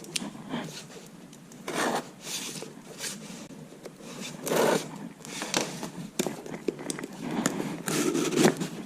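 A shipping package being opened by hand: irregular tearing and scraping, with some crinkling of the packing.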